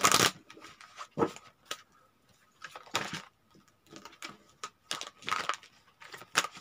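A deck of fortune-telling cards being riffle-shuffled on a cloth-covered table. There is a run of short papery riffles, the loudest at the very start, with four more over the next six seconds.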